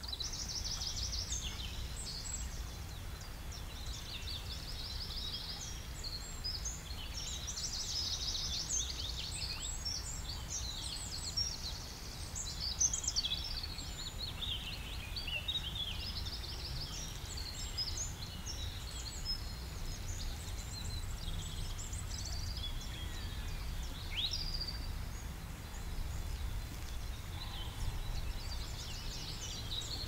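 Songbirds singing, with many overlapping chirps and fast trills, over a steady low rumble.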